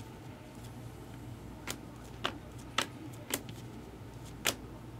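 Light, sharp clicks of trading cards being handled, about five of them at uneven intervals, over a low steady hum.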